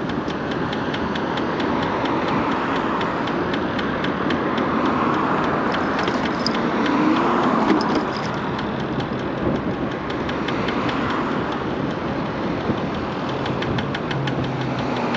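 Electric scooter on the move: steady wind and road noise, with a rapid, regular light ticking from the front wheel, where something like a cable is striking the fender.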